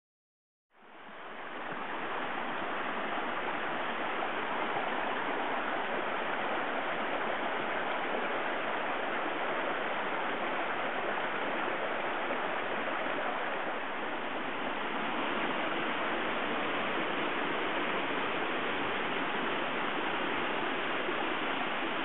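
Steady rush of a mountain stream cascading over rocks, fading in over the first second or two.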